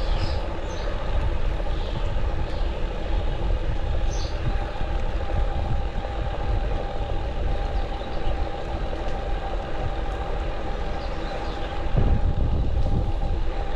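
Fazua Drive 60 e-bike mid-drive motor running while riding: a steady whine over a continuous rattle and low rumble. The rattle is the drive's rattling noise under investigation.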